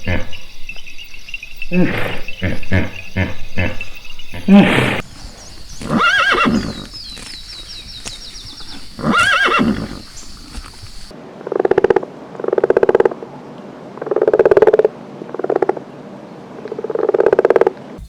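Farm animal calls: a run of quick calls and a few rising-and-falling calls, then, after a change in background, five or six buzzy calls at an even pace.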